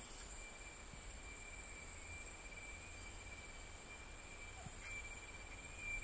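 Tropical rainforest insect chorus: a steady, shrill high-pitched drone with a fast pulsing texture, joined by a second, lower steady whine that grows stronger about five seconds in, over a faint low rumble.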